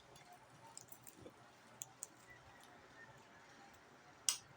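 Quiet eating sounds: a few faint clicks, then one short, sharp crunch near the end.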